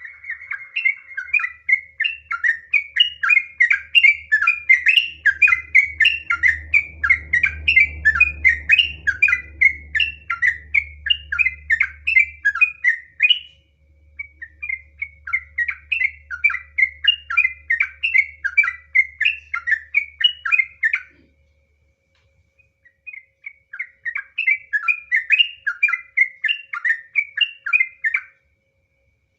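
Yellow-vented bulbul (trucukan) singing long runs of rapid repeated notes, about three a second, in three bouts with short breaks near the middle and late on. A faint low hum sits under the first two thirds.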